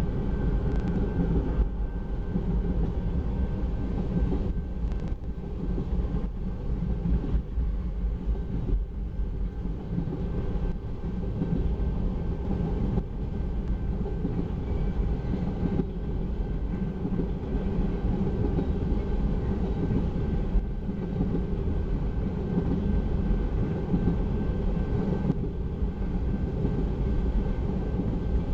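Empty oil-train tank cars rolling past, a steady rumble of steel wheels on rail.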